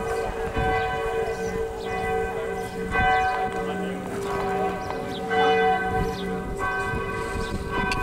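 Chartres Cathedral's church bells ringing. A new stroke comes every one to two seconds, and each one rings on under the next.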